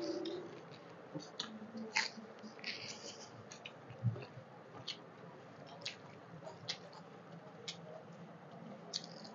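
Close-miked sounds of eating rice and curry by hand: quiet chewing and wet squishing of fingers mixing rice, with scattered soft mouth clicks and one low thump about four seconds in.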